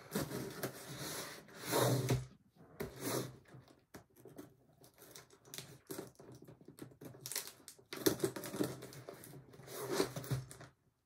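Packing tape being slit and torn off a cardboard shipping box, with the cardboard flaps rustling. It comes in rasping bursts, a long one at the start and shorter ones later.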